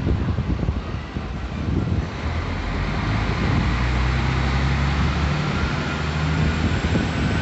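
Articulated city bus pulling away from a stop and driving off, its engine drone building up a couple of seconds in.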